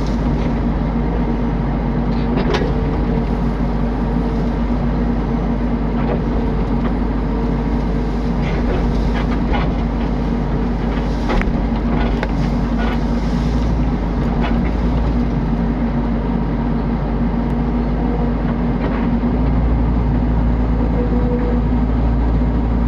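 Mini excavator's diesel engine running steadily with a constant hum, with scattered short sharp knocks and clacks as it works.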